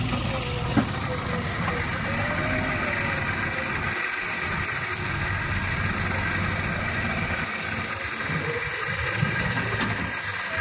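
Diesel engine of a JCB 3DX backhoe loader running steadily as it works, alongside a tipper truck. A faint whine wavers up and down during the first two seconds.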